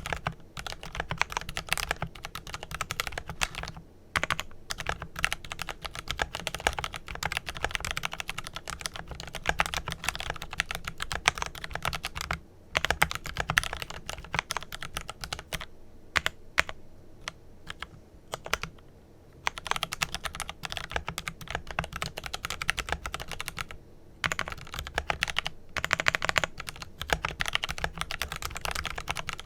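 Fast typing on a Glorious GMMK Pro mechanical keyboard with lubed Kailh Pro Purple tactile switches: a rapid, continuous patter of keystrokes broken by a few brief pauses, with sparser keystrokes for a few seconds around the middle.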